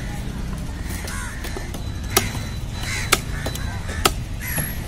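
A large knife chopping fish on a wooden log chopping block: three sharp strikes about a second apart, over a steady background din.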